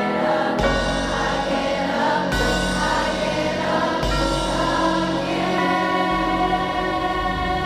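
Music: choral voices holding long notes over a deep bass that comes in about half a second in and moves to a new note every couple of seconds.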